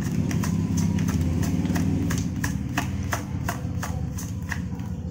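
A steady low drone of an idling engine, with a run of sharp clicks about three or four a second that thin out near the end.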